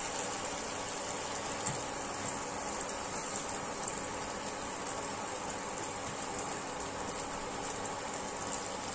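Batter-coated nendran banana slices frying in hot oil in a nonstick pan: a steady crackling sizzle.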